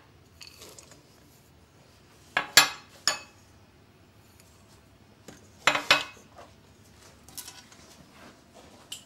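Kitchenware clinking: a metal spoon against a stainless steel mixing bowl and glass bowls being knocked and set down on a marble counter. The clinks come in two clusters of about three, near two and a half and six seconds in, with a few fainter ones later.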